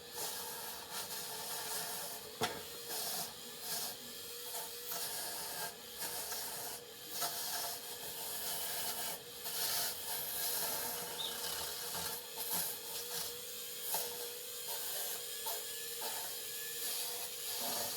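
Dremel rotary tool running steadily at high speed, its spinning bit rubbing and scratching in the crevices of an antique camera, giving irregular scraping bursts over the motor's steady whine.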